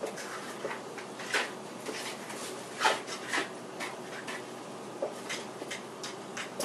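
A spoon scraping and tapping against the inside of a plastic cup as sauce is scraped out: a string of short, irregular scrapes and clicks, the sharpest about three seconds in.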